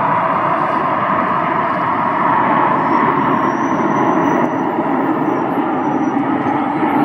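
Airbus A350 jet airliner on its takeoff roll, its Rolls-Royce Trent XWB engines at takeoff thrust giving a loud, steady rushing noise.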